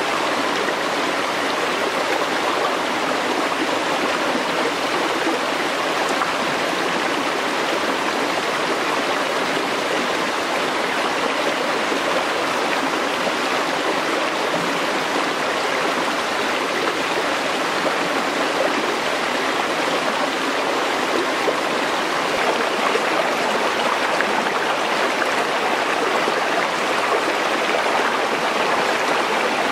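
Shallow rocky stream running over stones, a steady close rush of water that does not change.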